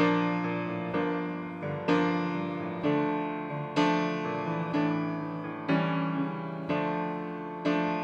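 Grand piano playing a slow hymn introduction: full chords struck about once a second, each left to ring and fade into the next.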